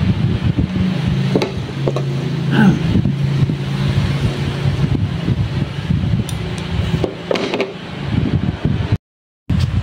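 Cloth and foam padding rustling as they are handled, with a few light clicks, over a steady low machine hum; the sound cuts out briefly near the end.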